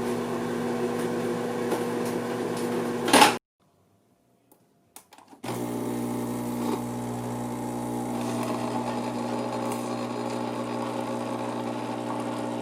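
Microwave oven running with a steady hum that stops about three seconds in, just after a short, sharp sound. After two seconds of silence, another steady appliance hum starts.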